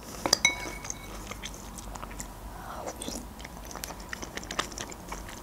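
Close-miked wet chewing of soft düşbərə dumplings in broth, with small mouth clicks. A metal spoon briefly clinks against the ceramic bowl about half a second in.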